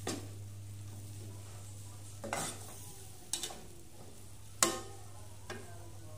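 Metal spatula stirring beef in a curry sauce in a frying pan, scraping and knocking against the pan about five times, the loudest about four and a half seconds in, over a faint sizzle from the pan.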